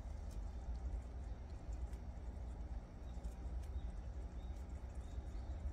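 Two prairie dogs gnawing and chewing raw supersweet corn, a run of small irregular crunching clicks as they bite kernels off the cob, over a low steady rumble.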